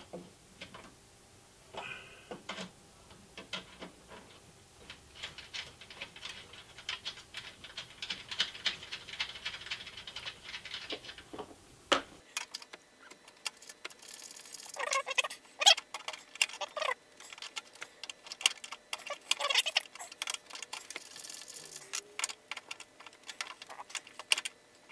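Small wrench clicking and scraping on the front-panel BNC connector nuts of an HP 54501A oscilloscope as the nuts are loosened and unscrewed, with loose metal nuts rattling. Many light, irregular metallic clicks.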